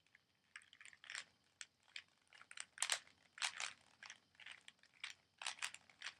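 Rubik's Cube being turned fast by hand in a speed solve: the plastic layers click and clack in quick, uneven bursts, several a second.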